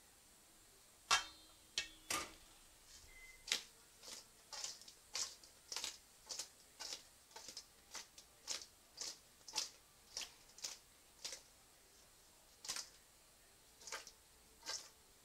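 Sauced fried chicken strips being tossed in a stainless steel mixing bowl to coat them, each toss a short slap and knock against the metal, about twice a second. About a second in, a sharp metal clank with a brief ring as the saucepan is set down.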